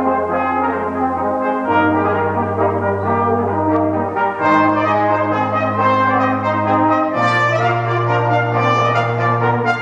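Brass ensemble of trumpets and tuba playing a Baroque piece: the tuba holds long bass notes, stepping to a new pitch every two to three seconds, while the trumpets play moving parts above.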